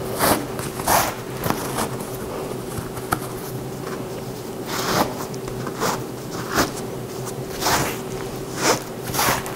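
Laces being pulled and cinched through the eyelets of a leather lace-up boxing glove (FLY Superlace): a series of quick, irregularly spaced swishing pulls, over a faint steady hum.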